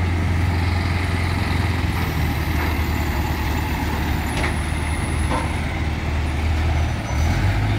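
Heavy diesel engine of a hydra crane running with a steady low drone; the engine note rises a little near the end.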